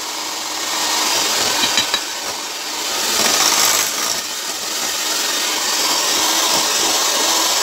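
White electric hand mixer running, its beaters whirring through thick cake batter in a glass bowl, steady with small rises and falls in level.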